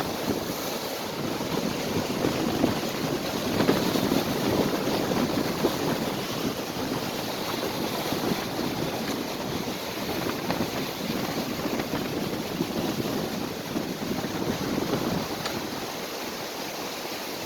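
Wind-driven storm waves on a large lake surging and breaking, with strong wind blowing across the microphone.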